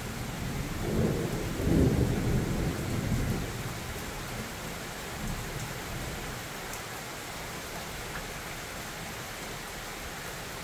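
Thunder rumbling and rolling in several waves, loudest about two seconds in and dying away by about four seconds, leaving the steady hiss of rain.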